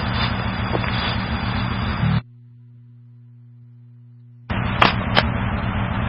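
Fire department scanner radio carrying an open transmission with no voice, only noisy static and a low hum. The noise cuts off abruptly about two seconds in, leaving a faint steady hum. Another noisy transmission keys up a little past halfway, with sharp crackling pops.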